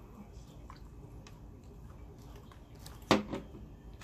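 A single sharp knock or bang about three seconds in, followed by a smaller second one just after, over faint scattered clicks of food and paper being handled.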